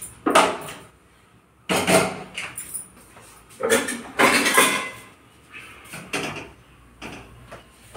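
Metal cookware clattering and knocking on a gas stove as a wok is set on a burner, in several short bursts with the busiest stretch just before the middle.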